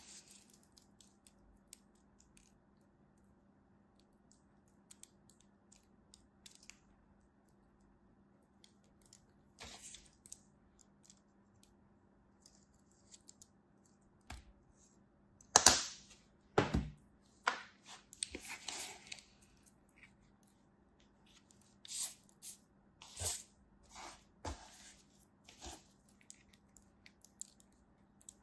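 Kinetic sand being pressed, scraped and crumbled in a small plastic cookie-cutter mold by hand, making soft crisp crunches and crackles. They are faint and sparse at first and come in louder clusters in the second half, loudest a little past halfway.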